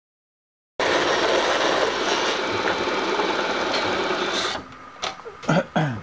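Vertical milling machine's end mill cutting an aluminium bar: a loud, dense, steady cutting noise that starts suddenly about a second in and stops about four and a half seconds in. A few short sounds falling in pitch follow near the end.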